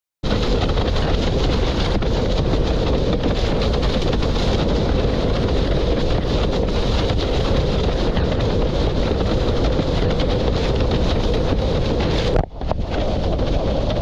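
Strong wind buffeting the microphone, mixed with rushing water, while windsurfing in high wind. The noise is loud and steady, with a brief drop about twelve and a half seconds in.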